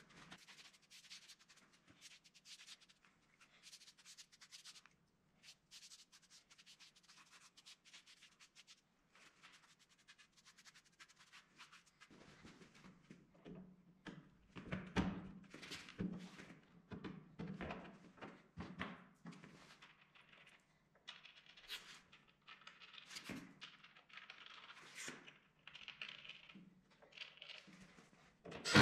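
Faint handling noise of wooden wagon parts being fitted: scattered clicks, scratches and rubbing, with louder knocks and thuds from about halfway through, over a low steady hum.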